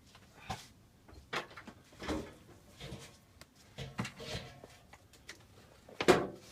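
Irregular knocks and clunks of things being handled and moved, with the loudest clunk about six seconds in.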